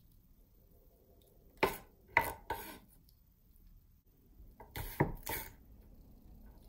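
Kitchen knife and hands knocking and scraping against a wooden cutting board and a metal bowl as sliced purple cabbage is cleared: three sharp knocks in quick succession about a second and a half in, then another short cluster about five seconds in.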